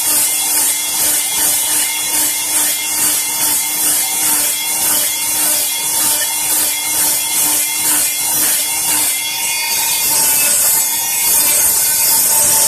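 Hand-held electric multi-tool running steadily, its abrasive head rasping against a white birch stick in repeated strokes about twice a second as it strips the bark. The strokes stop about ten seconds in and the motor runs on evenly.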